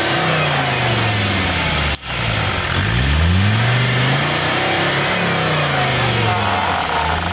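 Off-road 4x4's engine revving up and down several times, a stuck vehicle trying to drive out. The sound drops out for a moment about two seconds in.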